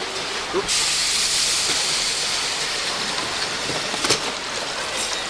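A loud, steady hiss of escaping steam from a kettle-element test rig. It starts abruptly about a second in, with a single knock about four seconds in.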